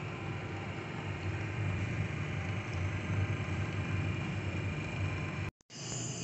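Terumo apheresis machine running during plasmapheresis: a steady, low hum with faint whining tones above it. It cuts off briefly about five and a half seconds in.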